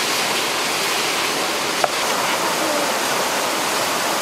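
Steady rush of water from a small waterfall, with one short sharp click a little under two seconds in.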